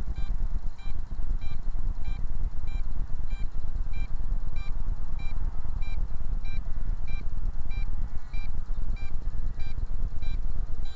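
Short electronic beeps from a Bugs 8 radio transmitter, repeating about twice a second, because it is being used to fly a Bugs 3 drone it was not made for. Under them runs a loud, uneven low rumble.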